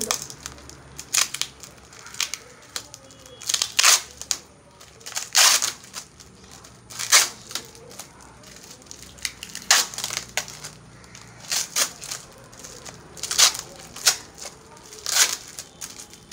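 Brown paper wrapping being crinkled and torn open by hand, in sharp crackling bursts every second or two with softer rustling between.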